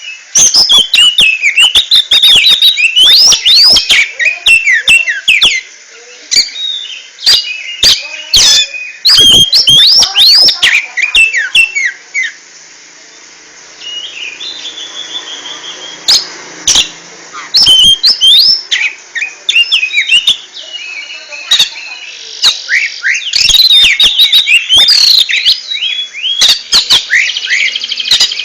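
Oriental magpie-robin (kacer) singing a loud, fast run of chirps, whistles and sharp clicks, with a quieter stretch about halfway through.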